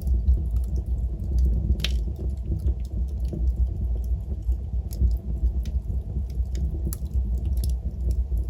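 Wood fire in a fireplace burning with a steady low roar, scattered crackles and sharp pops throughout, one louder pop about two seconds in.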